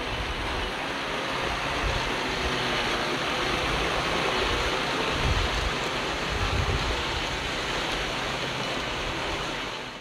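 Komatsu D51PX crawler bulldozer working, its diesel engine giving a steady rushing noise with irregular low rumbles.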